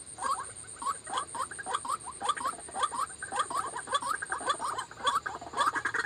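Rapid series of short squeaky calls of a white-breasted waterhen, several notes a second, with a steady high thin whine behind them.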